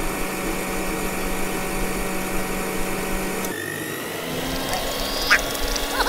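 Small electric motor of a toy tractor's auger attachment running steadily as the auger bores into sand. About three and a half seconds in, the hum drops and then settles on a slightly higher pitch. A short quack-like squeak comes about five seconds in.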